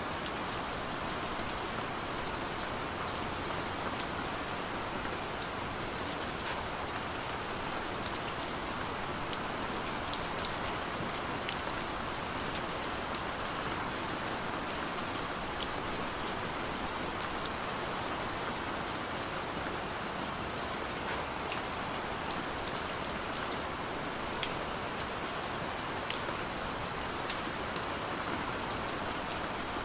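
Steady gentle rain falling, an even hiss with scattered sharp ticks of single drops hitting a surface.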